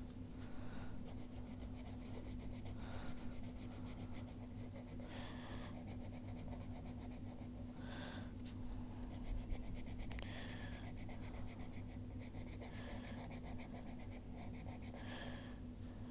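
Black colour pencil shading on paper: quick back-and-forth scratching strokes that come in runs and pause briefly, over a steady low hum.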